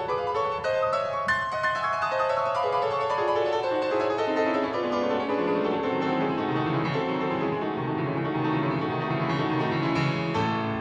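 Solo piano music playing a quick run of notes in the upper register, with lower notes and a bass line coming in about halfway.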